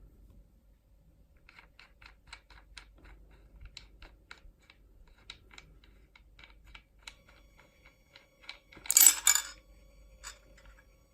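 Light metallic clicks and ticks from handling the flange, lock nut and disc of a Makita 9533B angle grinder while the blade is being fitted, with a short, louder metal clatter about nine seconds in.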